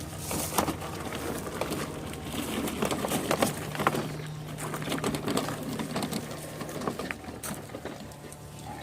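Walk-behind lawn mower being pulled off rocks: irregular clattering and crunching from its wheels and body as it moves.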